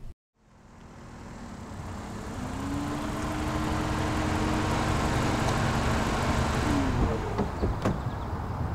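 A car approaching and pulling to a stop, its engine and tyres growing louder as it nears, then a few sharp clicks of its doors opening near the end.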